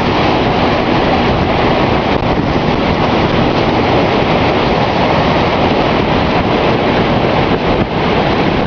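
Storm wind blasting across the microphone: a loud, steady rush of noise that never lets up.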